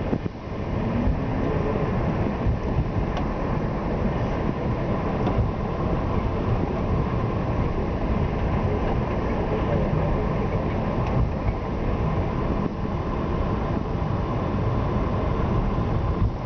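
Steady rumble and hiss inside an Airbus A320 cockpit as the airliner taxis, the idling engines, air conditioning and rolling noise blended together, with a few faint clicks.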